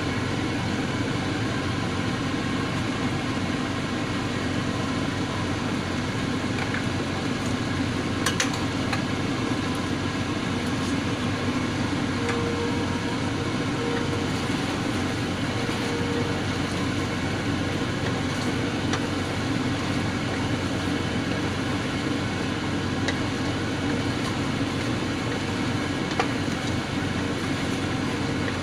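A steady rushing noise throughout, with a few faint light knocks as a wooden spatula stirs chicken adobo in a stainless steel pot.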